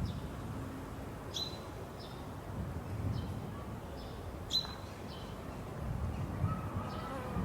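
Small birds chirping: short high chirps, each falling slightly in pitch, about one a second, over a low rumble.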